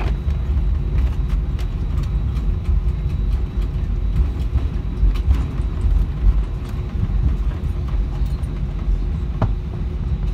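Airbus A320 cabin noise while taxiing: the jet engines idling under a steady low rumble, with a faint steady hum and occasional light clicks and rattles.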